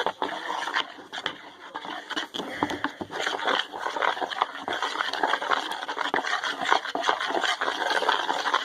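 Spoon stirring a thick cornstarch-and-water mixture in a bowl: a steady run of scraping and quick clicks.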